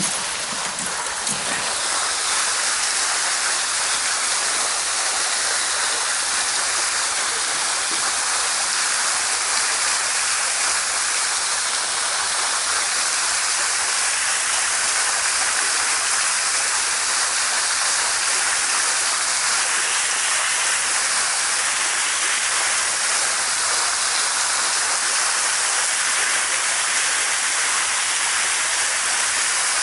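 Small waterfall pouring into the reservoir: a steady, even rushing of falling water.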